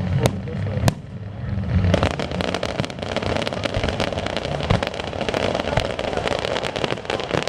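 Fireworks display: a couple of sharp bangs in the first second, then from about two seconds in a dense, continuous crackle of many rapid small reports.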